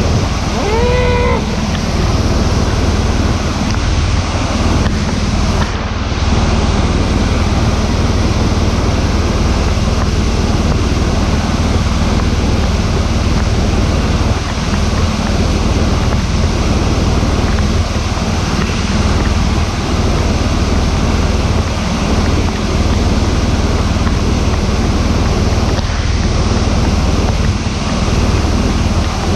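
Steady wind rush and road noise from a motorcycle being ridden, loudest in the low end, with a brief pitched tone about a second in.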